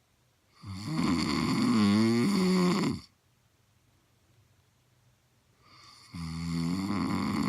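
Snoring: two long, pitched snores with a quiet gap of about three seconds between them, the first wavering in pitch and lasting over two seconds.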